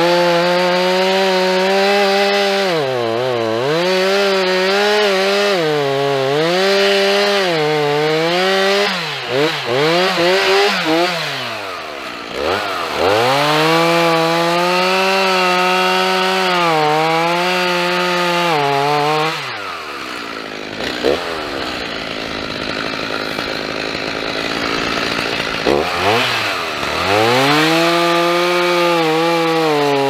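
Two-stroke gas chainsaw running at high revs while cutting into the trunk of a beetle-killed spruce to fell it. Its pitch dips repeatedly as the chain bogs down in the wood. A little past the middle it drops back to a low idle for several seconds, then revs up again and carries on cutting.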